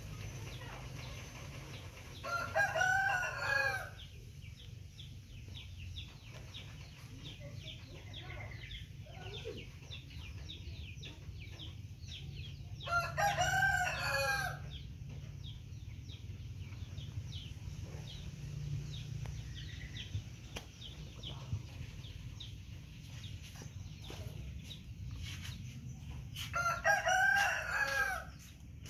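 A rooster crowing three times, each crow about a second and a half long and some eleven to thirteen seconds apart, over a steady low hum.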